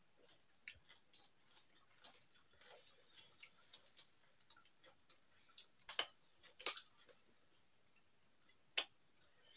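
Faint eating sounds of people eating rice and curry by hand: scattered soft clicks and chewing, with three louder sharp clicks about six, six and a half and nine seconds in.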